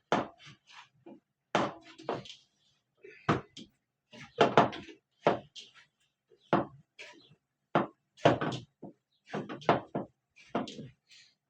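A string of irregular knocks and thuds, some in quick clusters and some alone, of things being handled and struck on a hard surface.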